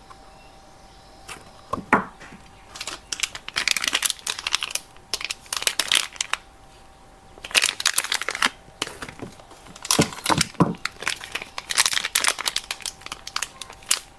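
Soap wrappers being crinkled and torn open by hand in repeated bursts, with a short pause just past halfway and a few soft thuds of the bars being handled.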